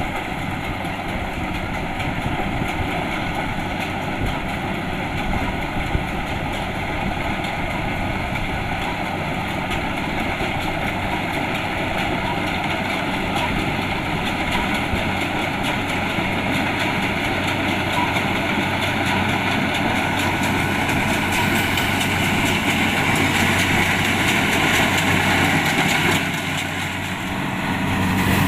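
Kubota DC-70 Plus rice combine harvester running steadily, its engine and threshing machinery humming together. Near the end the sound dips briefly, then returns a little louder.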